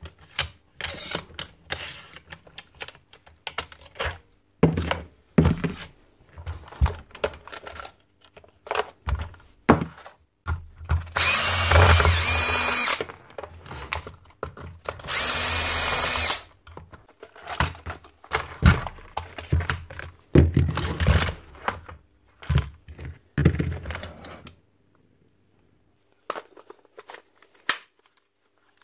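A power driver runs in two bursts of about two seconds each, whining as it removes screws from the housing of a gas-powered staple gun. Around them are many short knocks and clicks as the tool's plastic parts are handled and taken apart.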